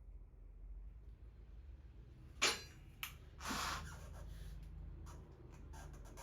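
Faint workshop handling noises: a sharp click about two and a half seconds in, a lighter click just after, then a short rustle, over a low steady hum.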